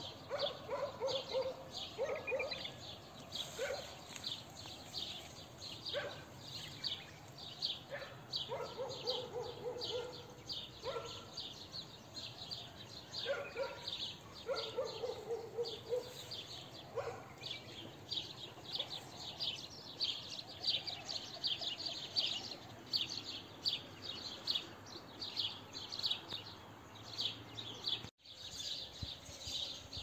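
Small birds chirping continuously, a dense stream of short high chirps several times a second. During the first half, a lower call comes in short repeated runs of notes. The sound drops out briefly near the end.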